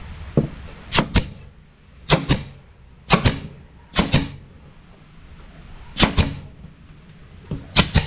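Nail gun driving nails into the edge of a plywood drawer box: six pairs of sharp shots, the pairs about a second apart.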